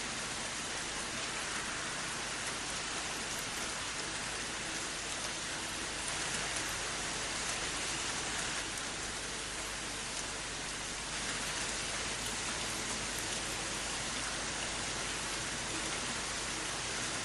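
Steady rain falling, an even hiss of rain on hard surfaces.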